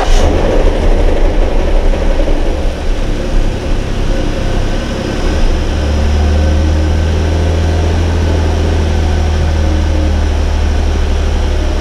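Ford 3.5 EcoBoost twin-turbo V6 firing on its first start after an engine swap: it catches with a flare right at the start, runs unevenly for several seconds, then settles into a steady idle about six seconds in.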